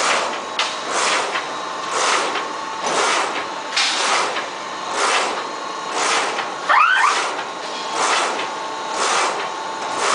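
Automatic die-cutting machine for corrugated board running in its work cycle, a whoosh repeating about once a second over a faint steady hum. A brief rising squeak comes about seven seconds in.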